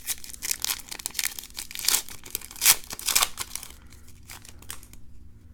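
A trading card pack wrapper being torn open and crinkled, a quick run of rustling rips that dies down after about three and a half seconds.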